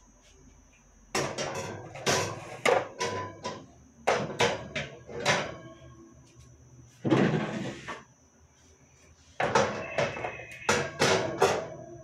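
Refrigerator wire shelves and plastic trays clattering and knocking as they are pulled out and set down on a stone counter, in four short bursts of rattles and knocks.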